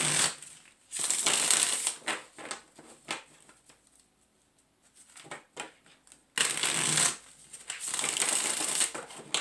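Tarot cards shuffled by hand: several bursts of rustling and riffling, with a quiet pause in the middle.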